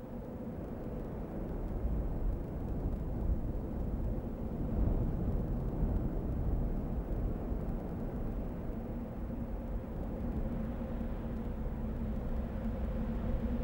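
A low, steady rumble with a faint sustained low hum under it.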